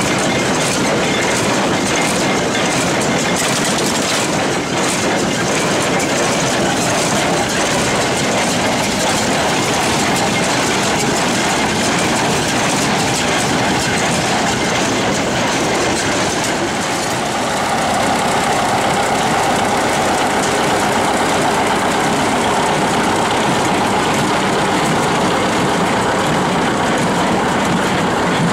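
Heavy farm machinery running steadily with a continuous rattling clatter; the sound changes a little past halfway, with a brief dip followed by a louder mid-pitched drone.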